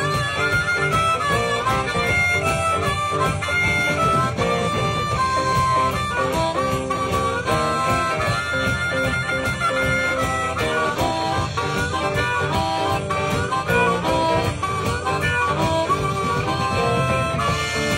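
Live blues band playing, with a harmonica soloing in held, bending notes over guitar and a steady beat.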